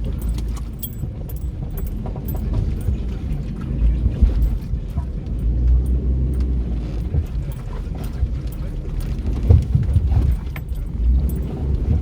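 Four-wheel drive driving over a rough bush track, heard from inside the cabin: a steady low engine and tyre rumble with frequent small rattles and clinks from loose gear jolting.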